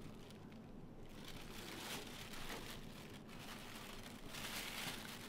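Thin plastic produce bag crinkling as bananas are put into it and the bag is handled. The rustles come irregularly, strongest about two seconds in and near the end.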